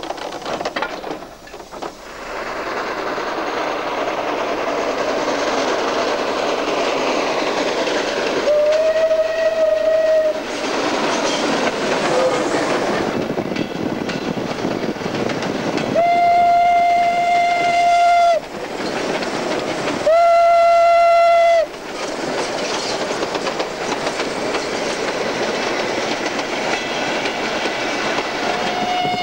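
Steam locomotive 434.1100, a Škoda-built 2-8-0, running with its train, a loud steady rush of steam and running noise throughout. Over it the locomotive's whistle sounds single-pitched blasts: one about nine seconds in, two close together a little past halfway, and another starting at the very end.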